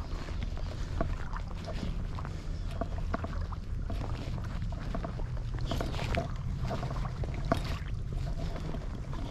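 Shallow creek water splashing and trickling, with small splashes and clicks scattered throughout over a steady low rumble.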